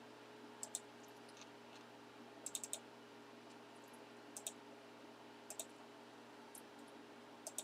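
Scattered light clicks over a faint steady room hum: single clicks and pairs every second or so, with a quick run of about four about two and a half seconds in.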